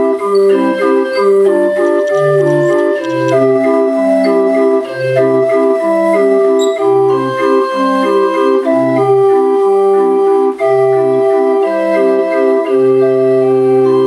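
Hand-cranked Erman 27-key street organ (draaiorgel) playing a tune from a perforated music book: pipe melody over an alternating bass of about two notes a second. The tune closes on a long held chord near the end.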